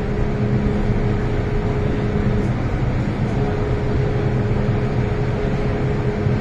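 Steady hum of an MTR M-Train car's onboard equipment and ventilation as the train stands at a station platform: a low drone with a faint higher steady tone that drops out for under a second midway.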